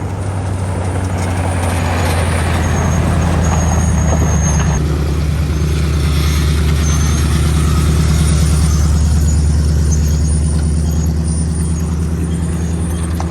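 Off-road wrecker truck's engine running at a steady low speed, a deep even drone under a light rattle.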